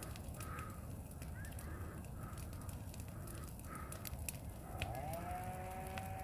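Brush pile fire burning, with a low rumble and frequent sharp crackles and pops. Short animal calls repeat about once a second, and near the end a long, steady call begins and holds.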